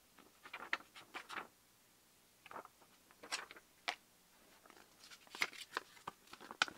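Paper instruction sheets rustling and crinkling in short spells as they are handled and a folded leaflet is opened out.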